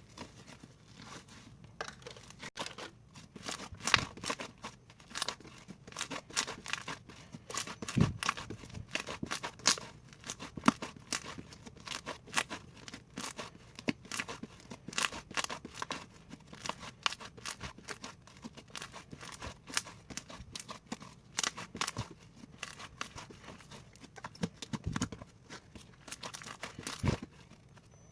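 Slime being pressed and squished by hand, making an irregular run of sharp crackling clicks and pops.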